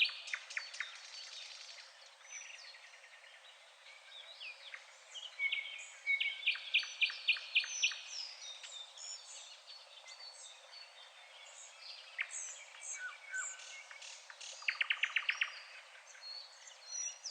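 Songbirds singing and chirping, several short calls overlapping, with fast runs of repeated notes about halfway through and again near the end.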